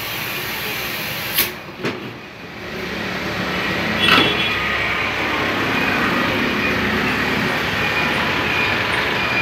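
Compressed air rushing steadily from an air hose into a motorbike fuel tank to push out a dent. It is broken by two clicks and a brief drop early on, then a single knock about four seconds in.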